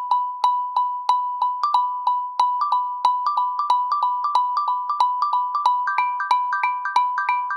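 Built-in Android phone tone on a Redmi Go 2: a bright, chime-like note repeating about twice a second, soon joined by more notes in a quickening pattern that climbs higher toward the end.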